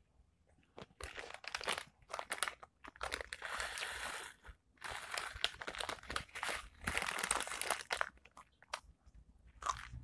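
Mister Potato potato crisps crunched and chewed close to the microphone, in bursts with a short pause about halfway, mixed with crinkling of the crisp packet.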